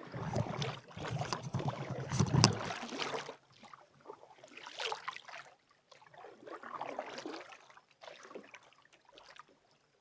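Canoe paddle strokes in calm water: fainter swishes of the paddle about every two seconds, after a louder stretch of noise and low rumble in the first three seconds.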